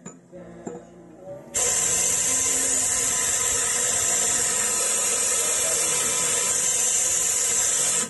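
Compressed air from an air blow gun blasting into the end of a metal tube: a loud, steady hiss that starts suddenly about a second and a half in and cuts off sharply at the end. A few light handling clicks come before it.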